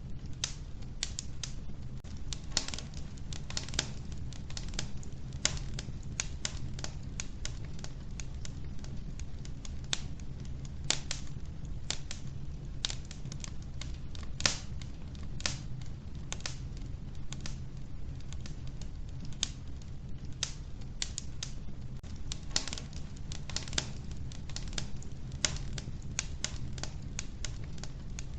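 Wood fire burning in a wood-burning stove, the logs crackling with irregular sharp pops, several a second and some louder, over a low steady rumble.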